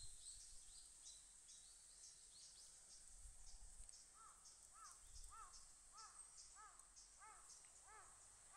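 A crow cawing faintly in a steady run of about nine calls, roughly two a second, starting about halfway through. A steady high insect trill runs underneath, with a few short high chirps in the first two seconds.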